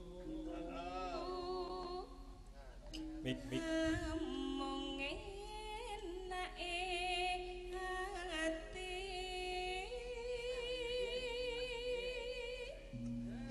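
A sinden, a female Javanese gamelan singer, sings long drawn-out notes with a wide vibrato into a microphone.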